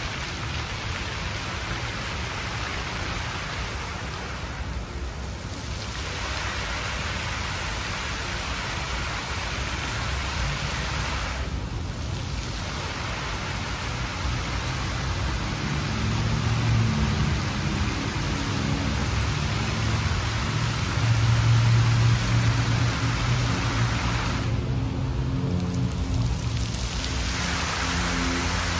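Water jets of a large outdoor fountain shooting up and splashing down into a pool: a steady rain-like hiss of falling water. The hiss thins out briefly three times, and a low steady hum comes in under it in the second half.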